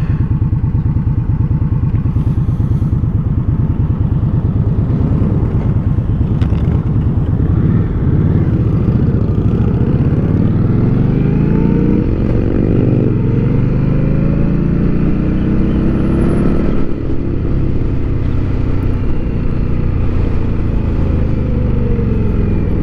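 Motorcycle engine running under way with heavy wind rumble on a helmet-mounted mic. Its pitch rises in two sweeps through the middle, as when pulling up through the gears, then falls away near the end as it slows.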